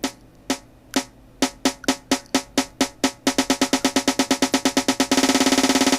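Programmed snare drum roll building up. It hits about twice a second, doubles in speed about a second and a half in, doubles again around three seconds, and about five seconds in becomes a fast, almost continuous roll. The hits get louder as they speed up, following a volume ramp set on the notes.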